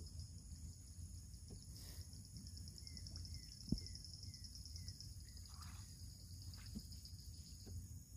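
Wooden canoe paddled along a lake edge, with soft knocks from the paddle, the clearest a little under four seconds in. Insects keep up a steady high, fast-pulsing trill, and a bird gives a row of about five short falling chirps midway through.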